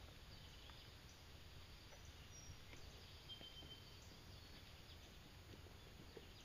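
Near silence: faint outdoor ambience with a few faint ticks and a brief thin high whistle a little after three seconds in. The ATV engine is not running.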